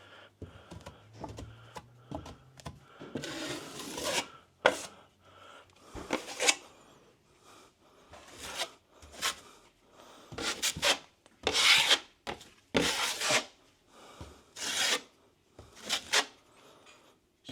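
Scraping strokes of a metal plastering blade spreading cornice cement over taped drywall joins, one stroke every second or two as a skim coat goes on.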